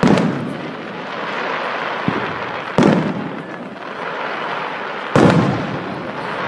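Aerial firework shells bursting: three loud bangs about two and a half seconds apart, the first right at the start, with a smaller pop just after two seconds, over a steady noisy haze between the blasts.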